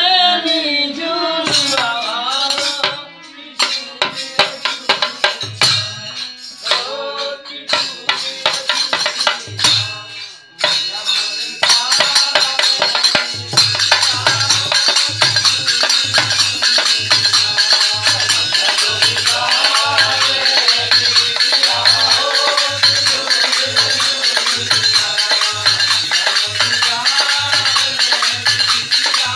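Devotional bhajan: voices singing with harmonium, at first over sparse clicks of hand percussion, then from about twelve seconds in over continuous jingling hand percussion and a steady low drum beat of a little over one stroke a second.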